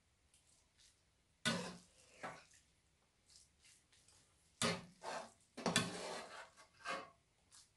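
Metal spoons clinking and scraping against a ceramic bowl and a pan of fried rice: about half a dozen short clinks, with a longer scrape about six seconds in.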